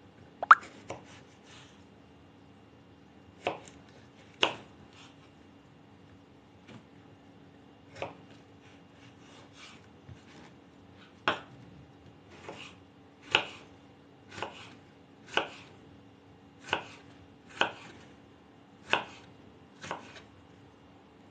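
Kitchen knife chopping a fresh cucumber on a wooden cutting board: slow, single strokes, each a sharp knock of the blade on the board. About fifteen in all, uneven at first, then steadier at about one a second in the second half.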